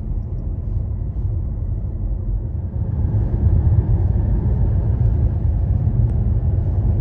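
Road and tyre noise heard inside a moving car's cabin: a steady low rumble with a fainter hiss above it, growing louder about three seconds in.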